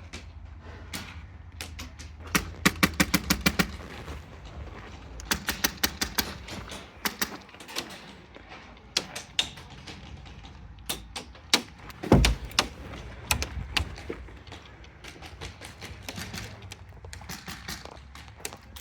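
Airsoft guns firing: scattered single shots and quick strings of sharp clacks, about ten a second, in several bursts. One heavier thump about twelve seconds in.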